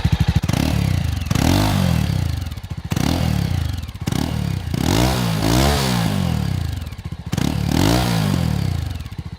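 Exhaust note of a Jawa 42's single-cylinder four-stroke engine, close up at the tailpipe: it idles with even pulses, then is revved in a series of quick throttle blips, each rising and falling in pitch, before settling back to idle near the end. A grunty, forceful note.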